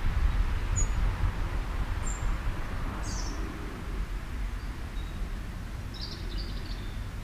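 Wind rumbling on the microphone, with a few short, high bird chirps scattered through and a brief twittering phrase about six seconds in.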